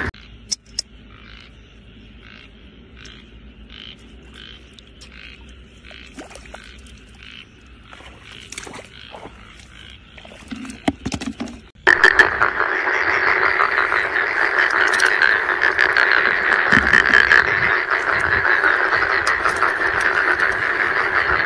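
Frogs calling: for the first twelve seconds a quiet call repeated about twice a second, with a few knocks near ten seconds in; then, about twelve seconds in, a loud, dense frog chorus comes in suddenly and carries on.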